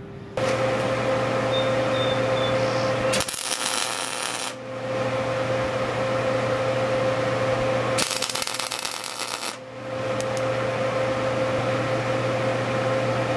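Electric arc welder tack-welding two-inch steel angle iron: the steady crackling buzz of the arc with a low electrical hum, broken by two short pauses between tacks.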